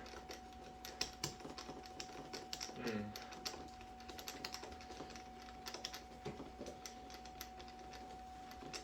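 Light, irregular clicks and taps of metal door-handle parts and a screwdriver as the long mounting screws of a Kwikset lockset are fitted by hand.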